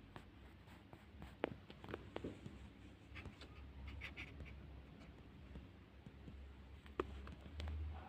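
Faint scattered clicks and taps of fingers handling the opened laptop around its charging port, the sharpest about a second and a half in and another near seven seconds, over a low hum.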